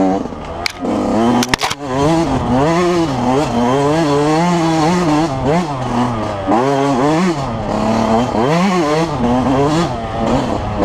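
2005 Yamaha YZ125's 125cc two-stroke single-cylinder engine racing along, its pitch rising and falling again and again as the throttle is worked on and off. A rush of noise runs underneath, and a few sharp clicks come in the first two seconds.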